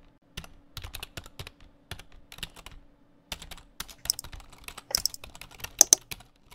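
Keyboard typing sound effect: rapid, irregular key clicks, with a short pause about three seconds in.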